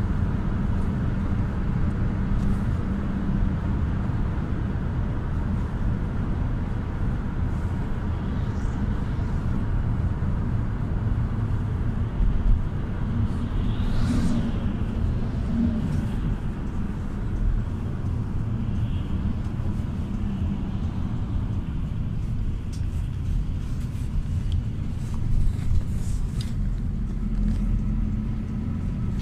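Cabin noise inside a GAZ A64R45 minibus on the move: a steady low rumble of its Evotech engine and tyre and road noise. A large vehicle passes close by about halfway through.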